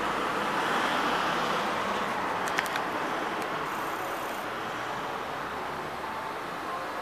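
Rushing noise of a vehicle running close by, slowly fading, with one sharp click about two and a half seconds in.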